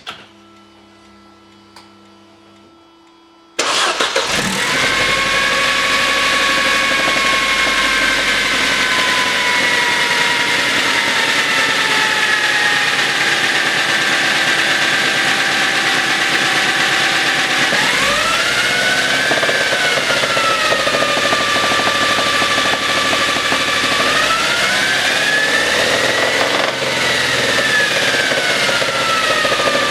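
Mercedes-Benz M271 supercharged four-cylinder petrol engine cranking and starting about three and a half seconds in, after a few quiet seconds, then idling with a slowly falling pitch, blipped twice in the second half. It runs with the accessory belt removed, so that a knock in the engine can be heard without belt-driven noise.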